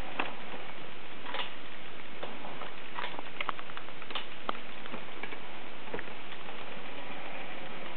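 Irregular light clicks and ticks, a dozen or so at uneven intervals, over a steady hiss.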